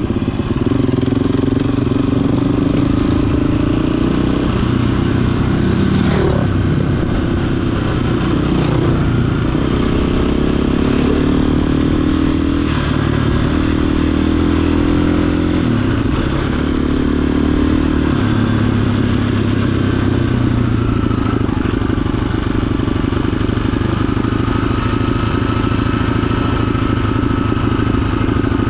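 Dirt bike engine running as it is ridden along a dirt track. The revs climb and drop several times in the first half and hold steadier in the second, with a few sharp clicks in the first half.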